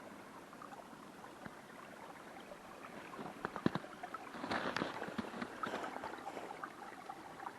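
Small creek bubbling and gurgling under snow cover, faint, with a busier, louder stretch of gurgling about four and a half seconds in.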